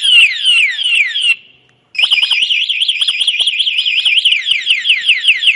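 TEXNO Super Two Way motorcycle anti-theft alarm siren sounding, set off by switching on the ignition while the alarm is armed. It runs through a string of falling sweeps, stops briefly after about a second and a half, then comes back as a fast up-and-down warble.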